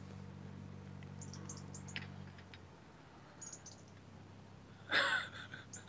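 Quiet outdoor pause: a low steady hum that stops about two and a half seconds in, with a few faint high bird chirps. A short burst of a man's voice comes near the end.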